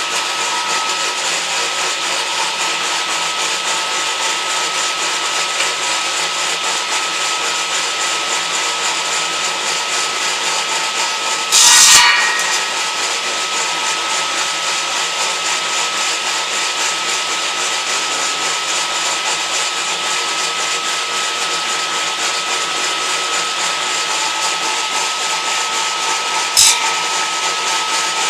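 A homemade electric edging saw running steadily with a constant whine, interrupted by a brief loud burst about twelve seconds in and a shorter one near the end.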